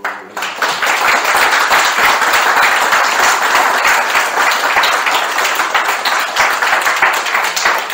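Audience applauding at length, starting at once and swelling to a steady, full clapping within the first second.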